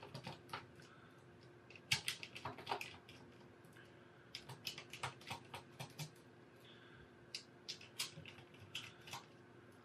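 Light, irregular clicks and ticks of a precision screwdriver backing small screws out of a plastic toy tablet's circuit board, with small taps of the tool and fingers on the plastic frame.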